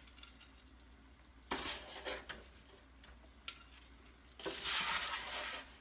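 Metal tongs scraping and rustling on a foil-lined roasting pan as roasted fingerling potatoes are picked up, in two short bursts with a single click between.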